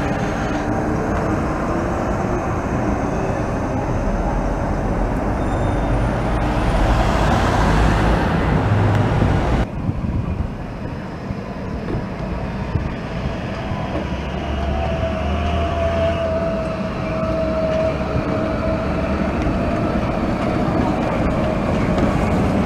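Translohr rubber-tyred tram running along the street, a steady rumble mixed with street traffic. The sound drops abruptly about ten seconds in. In the second half a whining tone dips and then rises in pitch as another tram approaches and passes close by.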